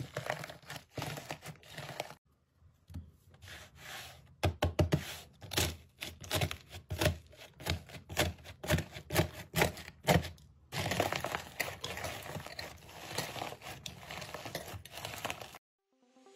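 Slime being squeezed and poked: close-up crackling and popping, in short clips cut together. The middle stretch is a run of sharp pops about two a second, with denser crackling before and after.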